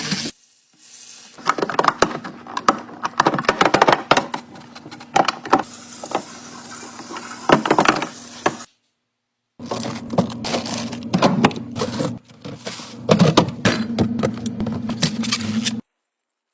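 Irregular knocks, clicks and clatter of food containers and refrigerator parts being handled and moved during a fridge clean-out, over a low steady hum. The sound cuts out abruptly twice.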